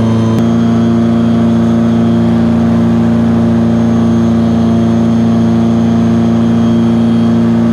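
Small engine of a self-launching glider running steadily, heard from inside the cockpit; its note shifts slightly about half a second in.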